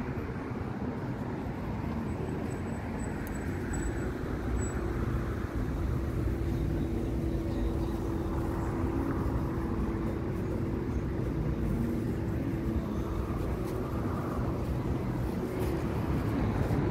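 Street traffic on a wide city road: a steady low rumble of car engines and tyres, with cars passing now and then. A steady hum runs through it from about four seconds in until shortly before the end.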